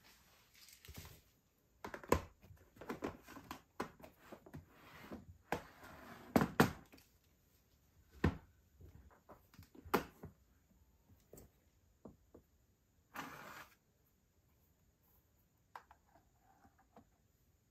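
Hard plastic compartment boxes of fuse beads being handled and set down on a table: a run of clicks, knocks and bead rattles through the first ten seconds, a brief rushing sound about thirteen seconds in, then a few faint taps.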